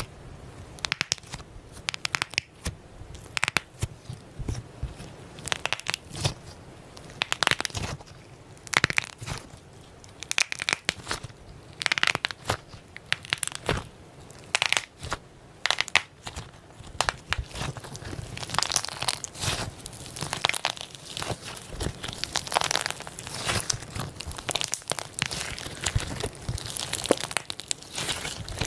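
Slime being squeezed and worked by hand, giving irregular crackling and crunching clicks.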